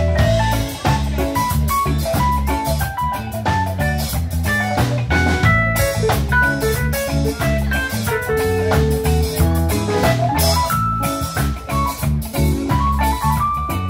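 Live band playing: electric guitar picking single-note lines over electric bass and a drum kit.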